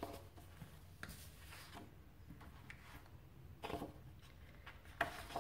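Sheets of cardstock being turned and slid over one another by hand: a few faint paper rustles, about a second in, near four seconds and again near the end, over a low steady hum.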